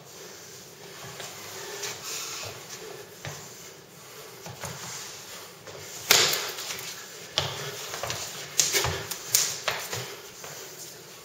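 Irregular sharp slaps and knocks of forearms and hands striking and blocking in Wing Chun chi sao. The loudest slap comes about six seconds in, followed by several more over the next three seconds.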